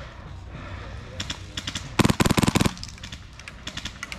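Airsoft guns firing: a loud, rapid full-auto burst of about fifteen shots close by about two seconds in, lasting under a second, with fainter bursts of more distant airsoft fire before and after it.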